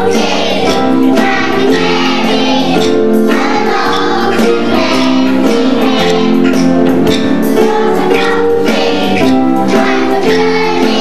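Children singing a song together over music with a steady beat.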